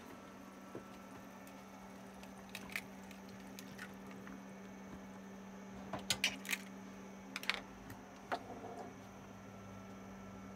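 An egg tapped and cracked on the rim of a nonstick frying pan: a quick cluster of sharp clicks about six seconds in, with a few more small taps and clicks from handling the eggs before and after. A steady low hum runs underneath.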